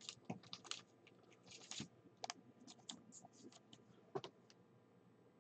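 Faint, irregular light clicks and taps, a few at a time, scattered through near silence.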